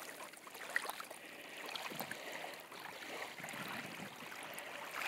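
Small waves lapping softly onto a sandy beach, washing up and draining back in gentle swells.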